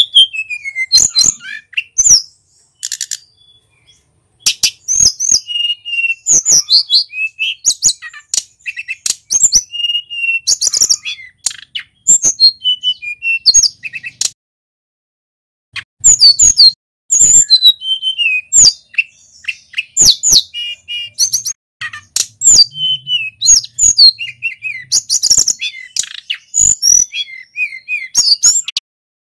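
Male sulingan gunung songbird singing hard: fast strings of high, sharply gliding chirps and whistled notes, breaking off for a moment about halfway through, then starting again.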